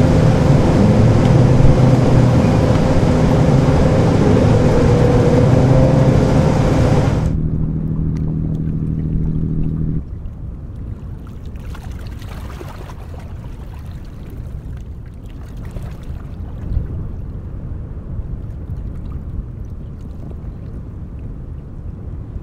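Ship's diesel engine running with a steady drone over water and wind noise. The sound changes abruptly about seven seconds in and again about ten seconds in, then gives way to a quieter low engine rumble and water wash from a wooden river cargo barge under way.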